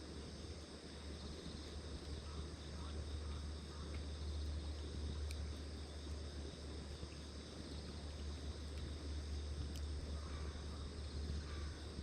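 Small wood fire crackling in a compact tabletop grill: a few isolated sharp pops, about five seconds and nine seconds in, over a steady low hum.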